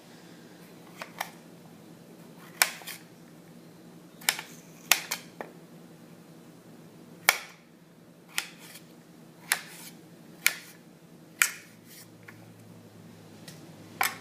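Kitchen knife cutting a potato, the blade coming down in sharp knocks at irregular intervals, about one a second.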